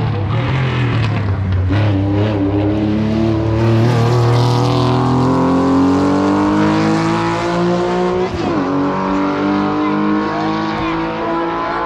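Race car's engine at full throttle on a hillclimb, its note climbing slowly and steadily in pitch, with a brief sharp dip about eight seconds in before it climbs on.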